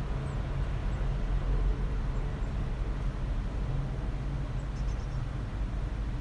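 City ambience: a steady low rumble of urban traffic, with a few faint high chirps about five seconds in.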